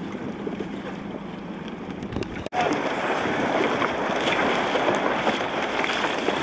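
Wind buffeting the microphone and water sloshing around a small boat out on choppy water, with a faint steady low hum in the first couple of seconds. About two and a half seconds in the sound cuts out for an instant and comes back louder.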